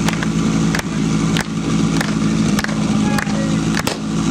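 Engine of a portable fire-sport pump running steadily at constant speed, waiting for the start of the attack, with several sharp clicks or knocks scattered through it.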